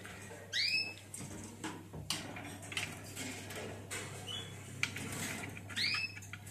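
Female canaries giving two short arched chirps, one about half a second in and one near the end, over light clicks and rattles of a plastic feeder against the wire cage as it is set in place.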